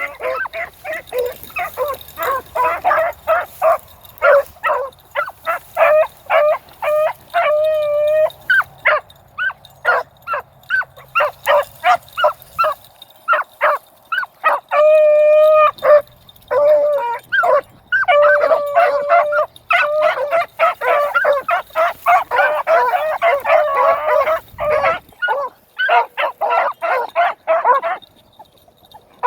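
A pack of beagles baying as they trail a rabbit: a rapid, nearly continuous string of short barks, with a few long drawn-out howling notes mixed in.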